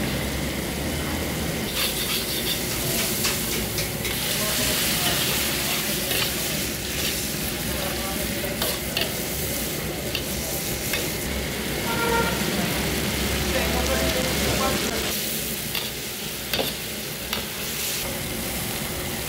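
Butter and then whole tiger prawns sizzling and frying in a wok, stirred with a metal ladle that clinks and scrapes against the pan in many short knocks.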